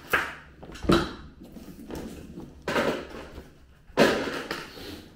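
Four sharp knocks and thuds spread over about four seconds, the loudest near the start, about a second in and near four seconds, with handling noise between: drinks and shopping being put away, cupboard or fridge doors and bottles knocking.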